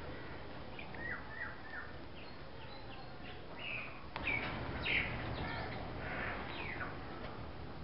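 Very young Persian kittens mewing: short, thin, high-pitched mews, a quick run of three about a second in and several louder ones between about four and seven seconds, over a steady low hum.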